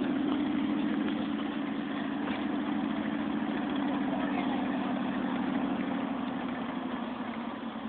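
Military vehicle engine running with a steady drone that slowly fades toward the end.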